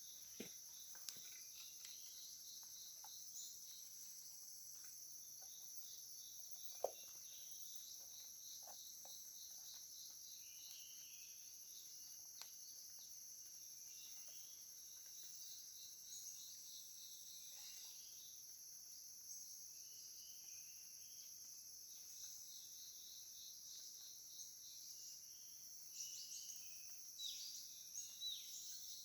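Steady high-pitched chorus of rainforest insects, with scattered short bird chirps, mostly later on, and a few faint clicks, the sharpest about seven seconds in.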